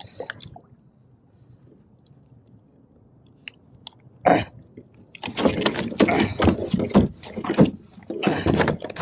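A freshly landed halibut thrashing and slapping against the kayak and the water. After a few quiet seconds there is one sharp slap, then an irregular, rapid run of splashy knocks over the last few seconds.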